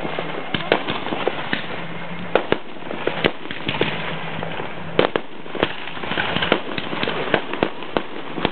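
Aerial fireworks shells bursting one after another: many sharp bangs and pops at an irregular pace, with crackling between them and a dense cluster of pops in the second half.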